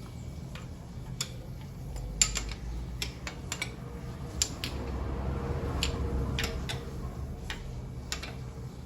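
Irregular metallic clicks and clinks from tools working the screws out of a motorcycle engine's clutch cover, over a low mechanical rumble.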